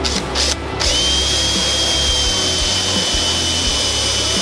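Makita cordless drill-driver drilling into a solid-wood board. Two short bursts on the trigger come first. From about a second in, the motor runs at a steady high whine for several seconds.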